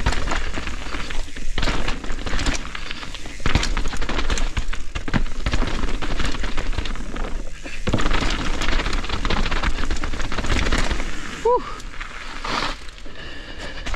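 Mountain bike descending a rough, wet trail at speed: wind buffeting the microphone with a heavy low rumble, over a constant clatter of sharp knocks as the bike rattles over roots and rocks. A brief rising squeak comes about three quarters of the way through.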